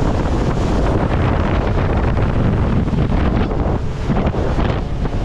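Heavy wind buffeting the microphone of a boat running at speed, over the steady rumble of its outboard motors and the rush of the wake.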